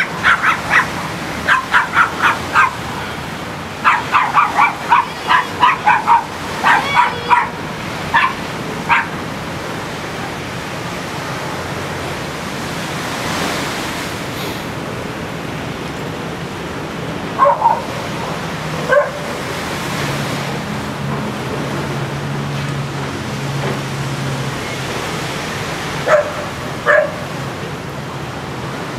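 A dog barking in short barks, many in quick runs over the first several seconds, then a few single barks later, over the steady wash of small waves on the shore.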